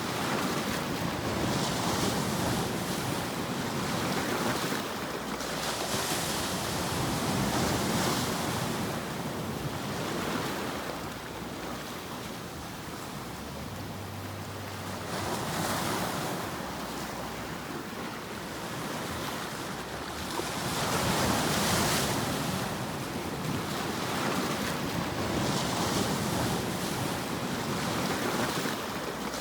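White-noise sleep track: a wide rushing hiss that swells and ebbs in slow waves every few seconds.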